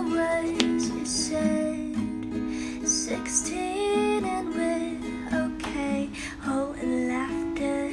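Background music: a song with acoustic guitar and a female voice singing.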